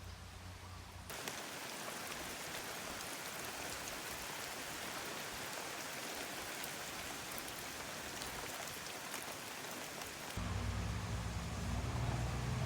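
Heavy tropical-storm rain falling steadily, a dense hiss of drops pattering on surfaces. About ten seconds in, a low steady mechanical hum joins it.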